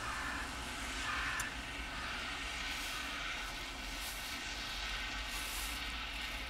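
Steady outdoor background noise: a low rumble under an even hiss, with a few faint brief ticks.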